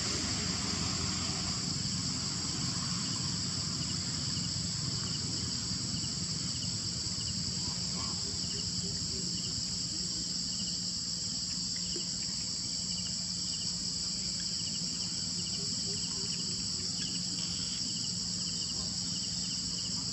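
Steady, high-pitched chorus of insects droning without a break, with fainter repeated chirps from other insects.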